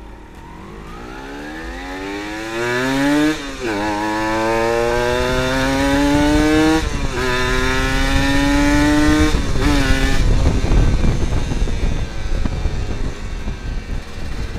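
Kawasaki Ninja 150 two-stroke single-cylinder motorcycle accelerating hard through the gears: the engine note climbs, drops at an upshift about three and a half, seven and nine and a half seconds in, and climbs again each time. After about ten seconds the engine note is buried under loud wind rush on the helmet camera.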